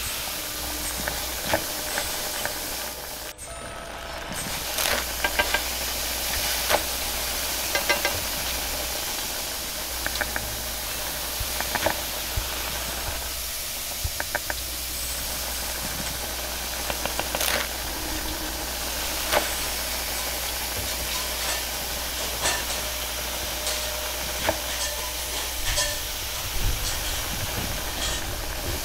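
Gas wok burner running with a steady hiss and food sizzling in a carbon-steel wok, while a metal spatula scrapes and clanks against the wok at irregular moments. The sound briefly drops out a little over three seconds in.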